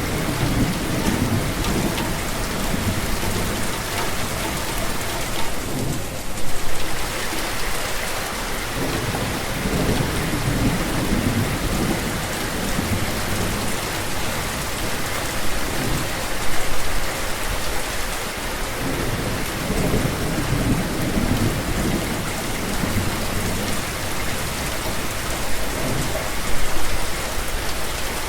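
Steady heavy rain, with low rolls of thunder swelling and fading under it. There are three brief louder bursts, about ten seconds apart.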